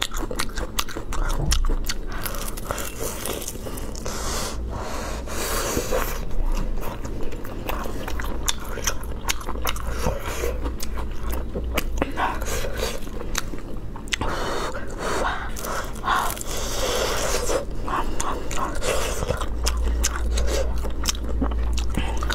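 Close-miked eating of crisp fried rolls: many sharp crunching bites and chewing.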